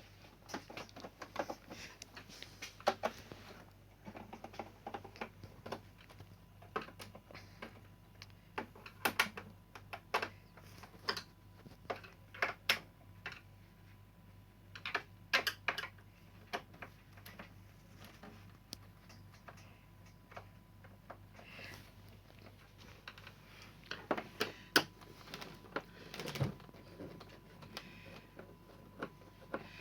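Irregular small clicks and taps of a screwdriver working screws out of an LCD TV's plastic back cover.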